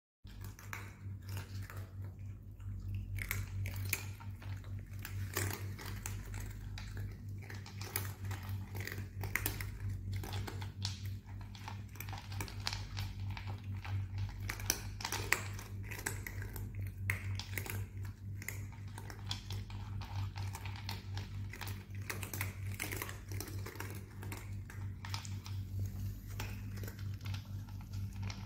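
Several cats crunching dry kibble, a dense, irregular run of crisp crunches from many mouths at once, over a steady low hum.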